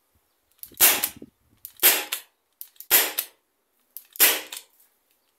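Byrna SD CO2 launcher firing four shots about a second apart, each a sharp pop with a short tail. The launcher runs on an 8-gram CO2 cartridge and is fitted with a custom valve pin.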